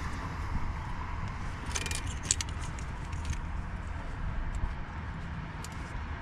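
Light metallic clinks and rattles of hand tools and loose parts, a short cluster about two seconds in and a few fainter ticks later, over a steady low hum.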